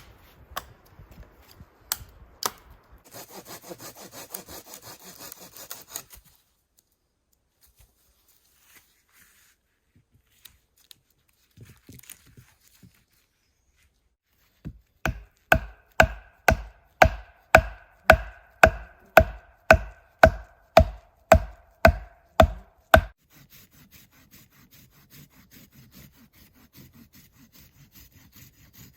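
Wood being worked by hand: about three seconds of sawing, then a run of some twenty sharp strikes on wood, two or three a second, each with a short ringing tone.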